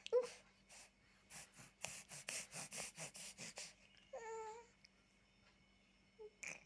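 A baby laughing in a quick run of breathy giggles, then giving a short high-pitched squeal.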